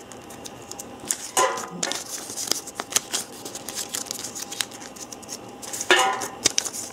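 Small paper slips folded by hand, crinkling and rustling, and dropped into a metal tin, which gives a short ringing clink about a second and a half in and again near the end.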